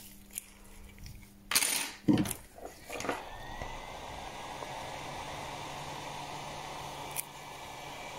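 A few clicks and a sharp rustling knock about a second and a half in, then two or three knocks as a small electric blower starts up. It then runs with a steady hissing rush and a low hum.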